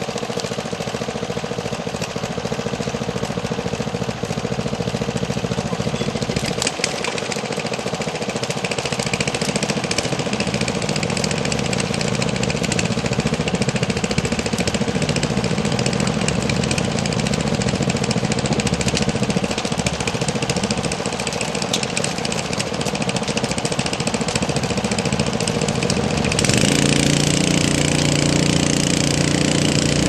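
Small engine of a skid-mounted fire pump unit running steadily. About three-quarters of the way in its note changes and it gets louder, with a hiss added, as the hose nozzle opens and the water stream goes onto the fire.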